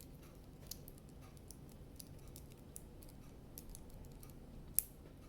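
Faint small clicks and taps of plastic Lego minifigure parts being handled and fitted on, with one sharper click near the end.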